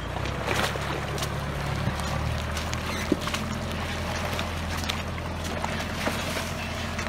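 Antonio Carraro TRX9900 tractor's diesel engine running steadily under load as it skids a large log. A single sharp click about three seconds in.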